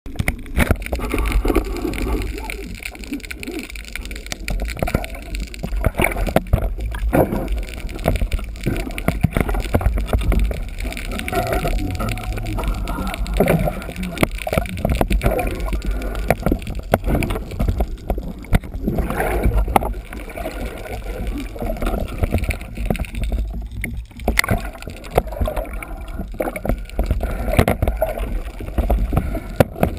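Underwater noise picked up through a camera housing while swimming: a steady low rumble of water moving past the housing, with scattered clicks and crackles.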